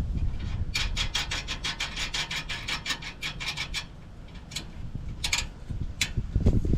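Rapid run of rasping clicks, about five a second for some three seconds, followed by a few single clicks: a ratchet spanner working the bolts on the exhaust flange.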